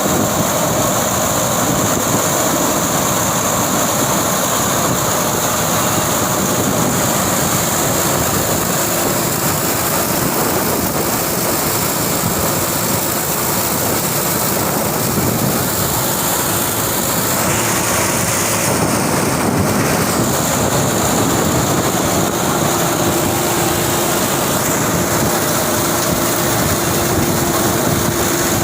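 Tractor-driven straw chopper machine running steadily: a constant loud mechanical din with a steady high whine over the tractor's engine.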